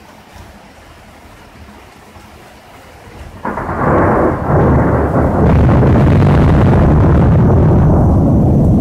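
Thunder: after a quiet hiss, a sudden crash about three and a half seconds in rolls on as a long, loud rumble. The rumble is loud enough to hold the old mobile phone's microphone at a flat, overloaded level.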